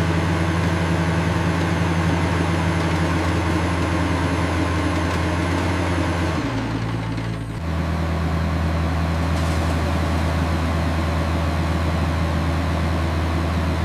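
Cartoon bulldozer engine running steadily with a low drone while pushing rocks. About six and a half seconds in, it changes tone for about a second, then settles back into the same drone.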